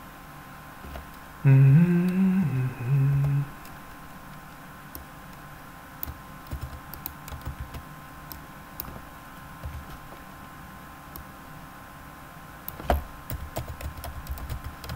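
A voice hums briefly, in two short phrases, about a second and a half in. Computer keyboard typing follows as scattered keystrokes, with a quicker run of keys near the end.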